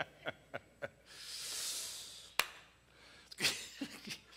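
A man chuckling in short bursts, then a long breathy exhale, a single sharp click, and a few more breathy laughs near the end.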